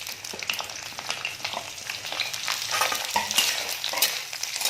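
Pieces of pointed gourd (parwal) sizzling and crackling in hot oil in a kadhai over a high flame, the crackle growing busier from about three seconds in.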